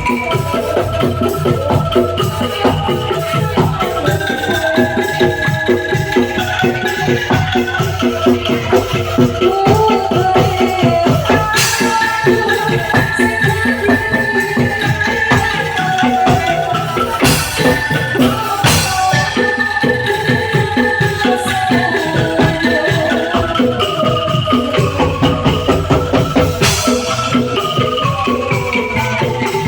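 Bamboo angklung ensemble playing a melody, the tuned tubes shaken in a rapid rattling tremolo over a steady low beat. A few sharp crashes cut through, the first about twelve seconds in.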